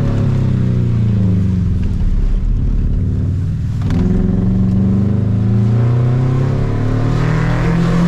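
Subaru Impreza 2.5 RS's flat-four engine driven hard at autocross: revs fall off for about three and a half seconds as the car slows, then climb again as the driver gets back on the throttle, rising twice toward the end.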